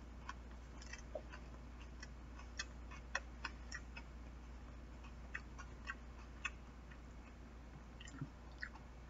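A person chewing food with the mouth closed: faint, scattered small wet clicks and smacks at an irregular pace.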